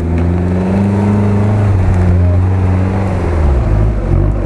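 Toyota 4Runner's engine revving hard under load as the off-roader climbs out of a muddy ravine. The pitch rises in the first second, holds, then falls away near the end.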